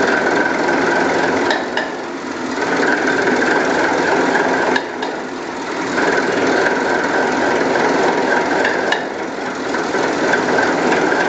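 Niigata 6L28HX six-cylinder medium-speed marine diesel engine running after a major overhaul, heard up close at the cylinder heads: a dense, steady mechanical clatter with a few sharp clicks. All cylinders are firing.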